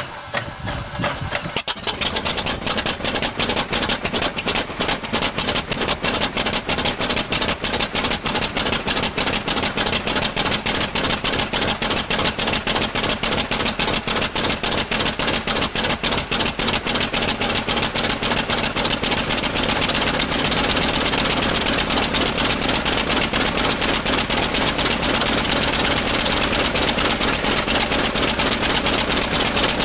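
North American T-28 Trojan's radial piston engine being started: it cranks briefly, catches about a second and a half in, and runs on with a rapid, rough stream of firing pulses that evens out somewhat in the second half.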